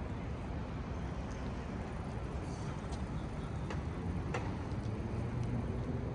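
Steady city street traffic rumble with a few sharp ticks in the middle, and a vehicle engine hum rising slightly near the end.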